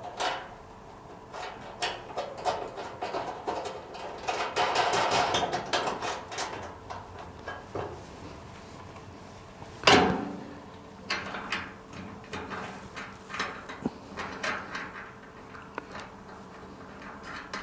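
Metal clinks, knocks and rattling of bolts and a support bracket being fitted to a wheelbarrow's drum and frame, with one loud clank about ten seconds in.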